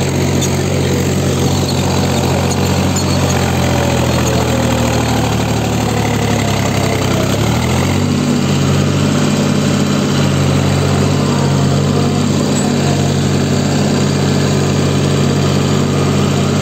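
Mahindra 265 DI tractor's three-cylinder diesel engine running steadily under load while pulling a nine-tine spring cultivator. About halfway through, its note dips briefly and then settles again.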